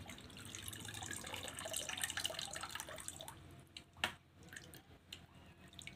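Faint water trickling and dripping in a plastic bucket as a small pop-pop toy boat is held underwater to fill it with water, with scattered small ticks and one sharper tick about four seconds in.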